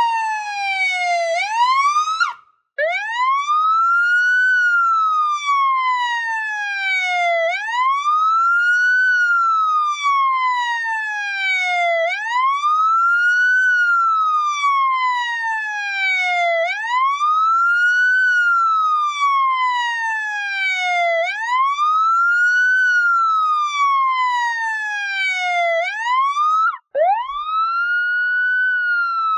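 Police siren sounding a wail: each cycle rises quickly, then falls slowly, repeating about every four and a half seconds. The sound cuts out for a moment twice, about two and a half seconds in and about two seconds before the end, then starts a fresh rise.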